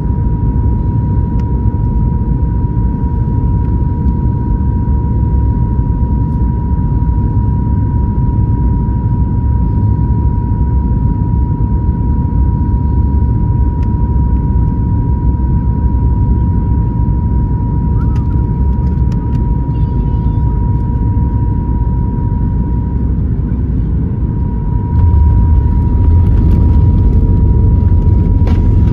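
Cabin noise of a Boeing 737 MAX 9 with CFM LEAP-1B engines on final approach: a steady rumble of engines and airflow with a thin, steady whine running through it. Near the end the aircraft touches down on the wet runway and the rumble steps up louder as the spoilers deploy for the landing roll.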